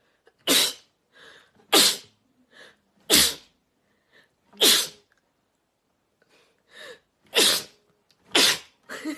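A person sneezing six times in rapid succession, each sneeze preceded by a short intake of breath, with a pause of about two seconds after the fourth.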